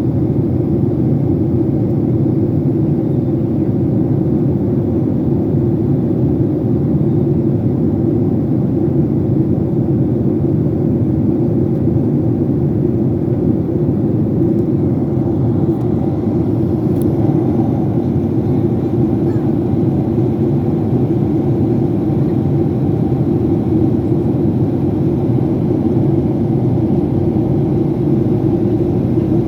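Steady low roar of an airplane cabin in flight: engine and airflow noise, unchanging throughout.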